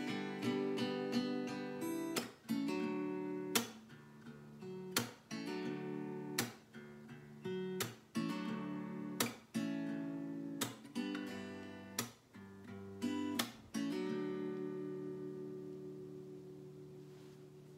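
Acoustic guitar closing out a song: strummed chords, a strong stroke about every second and a half, until a final chord is strummed about fourteen seconds in and left ringing as it fades away.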